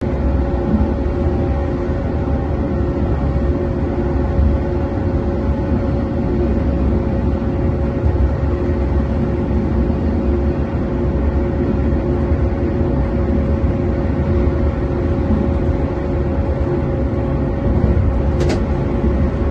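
Train running through a tunnel, heard from inside the driver's cab: a steady low rumble with a constant hum over it. A brief sharp tick sounds near the end.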